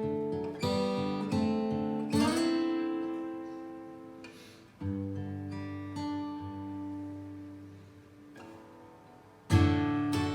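Gibson J-45 steel-string acoustic guitar being played: a few quick picked notes, then two chords struck and left to ring out and fade for a few seconds each, then brisk playing again near the end.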